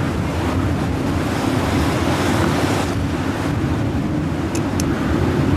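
Strong wind buffeting the microphone over a rough, storm-driven sea surging and breaking, with a louder rush midway that stops abruptly. Two brief clicks near the end.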